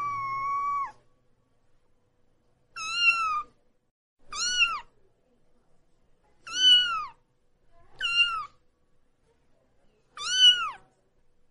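A young kitten meowing while being bathed: a long meow trailing off just after the start, then five short, high meows, each rising and then falling in pitch, one every second or two.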